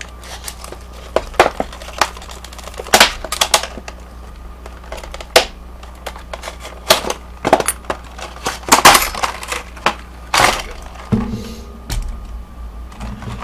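Packaging of a new Kwikset lock being torn open and handled: irregular sharp crackling and snapping, loudest about nine to ten seconds in, with a few duller knocks near the end.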